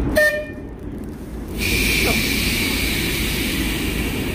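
Class 08 diesel shunter, English Electric six-cylinder engine, running low as it moves past, with a short horn toot just after the start. A steady hiss comes in about a second and a half in.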